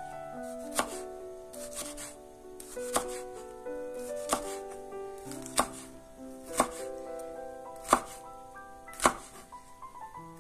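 Chef's knife dicing a red bell pepper on a wooden cutting board: about eight sharp knocks of the blade on the board, roughly one a second. Soft background music plays underneath.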